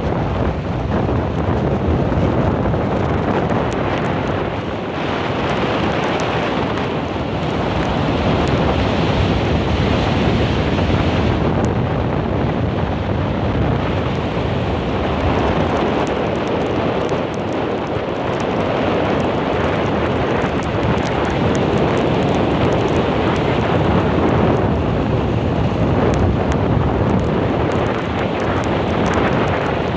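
Storm wind buffeting the microphone over heavy surf breaking on a sandy beach: a loud, steady rush that swells and eases with the gusts.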